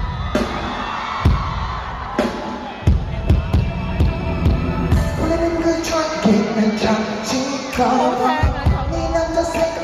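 Live pop music played over a concert sound system: a heavy, regular drum beat with bass, and a singer's melody coming in over it from about six seconds in.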